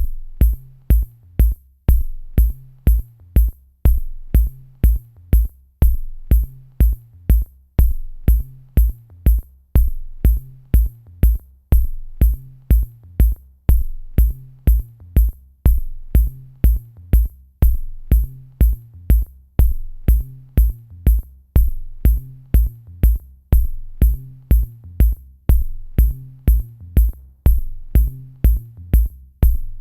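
Electronic background music with a steady drum-machine beat: a deep kick drum about twice a second with short hi-hat ticks.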